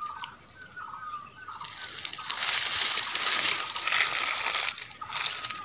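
Dry leaf litter and brush rustling and crackling underfoot and against the body as someone pushes through forest undergrowth, loudest from about a second and a half in until near the end. A bird's short repeated calls are heard in the first second.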